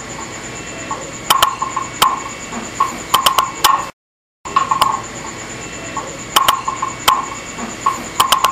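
Sound-design track of sharp, irregular clicks and short pinging tones over a faint, steady high whine. It cuts to dead silence for about half a second a little before halfway, then resumes.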